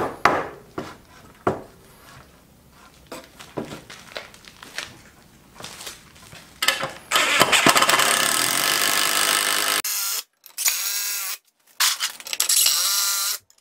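Wooden boards knocked and shifted about on sawhorses, then a cordless drill runs: one long run of about three seconds, followed by several short bursts that spin up and down.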